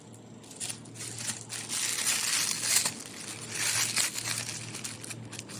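Packaging being handled as a parcel is unpacked: crinkling and rustling of wrapping, in two longer stretches through the middle.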